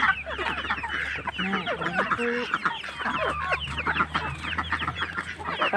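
A backyard flock of chickens clucking and calling over one another in a constant, busy chatter: hungry birds waiting to be fed.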